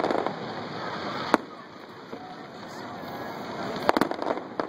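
Aerial fireworks shells bursting: a sharp bang about a second in, then a quick cluster of bangs and pops near the end.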